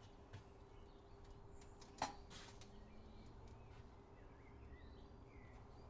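Near silence: faint outdoor ambience with a low steady hum and distant birds chirping now and then, broken by one sharp click about two seconds in.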